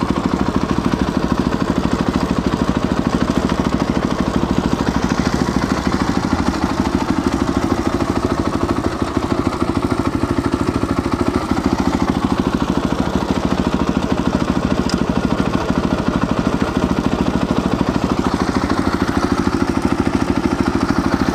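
Christini all-wheel-drive dirt bike's single-cylinder engine running steadily at an even idle.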